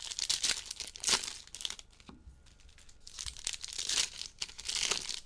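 Plastic packaging of a trading-card box crinkling and tearing as the box is opened, in two spells with a sharp snap about a second in.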